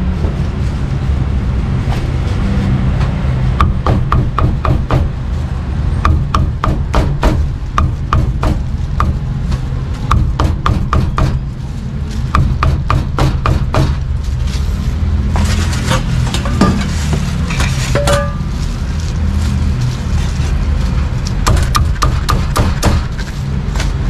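Cleaver chopping meat on a wooden chopping block, sharp knocks coming in quick runs of strokes with short pauses between. A steady low hum runs underneath.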